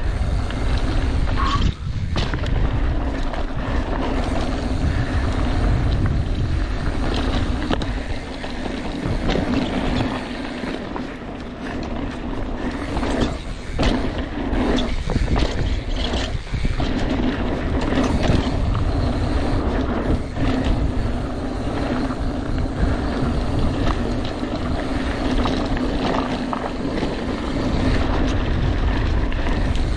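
Mountain bike rolling down a rocky dirt trail, with wind on the microphone, tyre noise and scattered knocks and rattles over bumps. An annoying squeaking comes from the bike.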